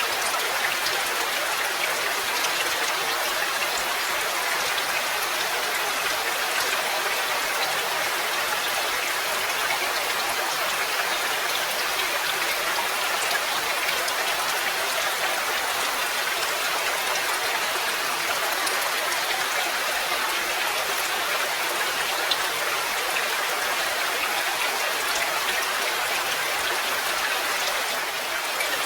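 Steady rain falling, an even, unbroken patter of drops with no pauses or changes.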